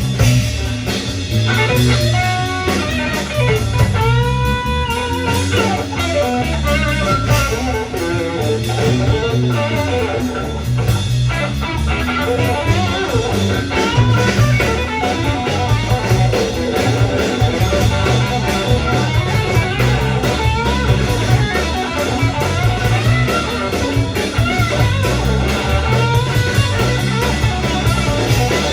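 Live rock band playing with electric guitar over bass and drums; the guitar slides and bends notes a few seconds in.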